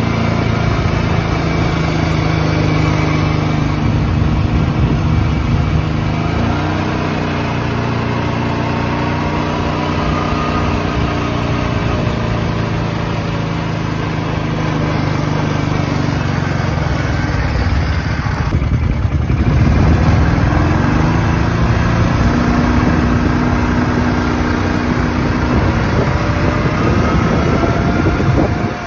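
Kawasaki Brute Force 650 ATV's V-twin engine running as the quad is ridden, its pitch rising and falling with the throttle.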